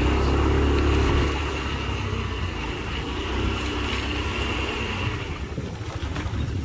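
Small motorbike engine running as the bike rides along, louder for the first second or so, then steady.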